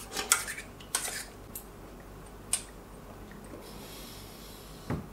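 Metal clinks and taps on a stainless steel mixing bowl while eating from it: a few short sharp clicks in the first three seconds, then a dull knock near the end.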